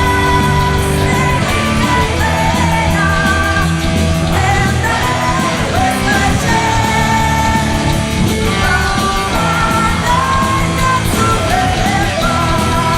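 Heavy metal band playing live: distorted electric guitars, bass and drums, with a voice singing a held, wavering melody over them.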